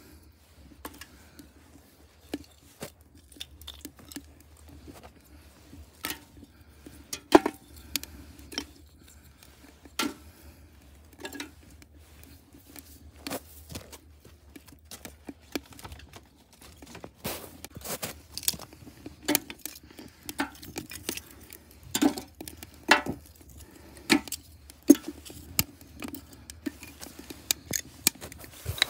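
Split-wood kindling catching fire in a metal bucket, crackling with irregular sharp pops and snaps that come more often from about halfway on.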